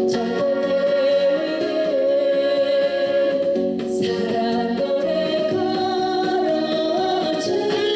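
A woman singing a trot song over band accompaniment. She holds long notes that waver and step between pitches.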